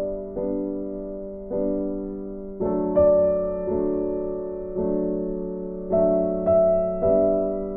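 Background music: soft keyboard chords in a piano sound, struck about once a second, each ringing and fading before the next.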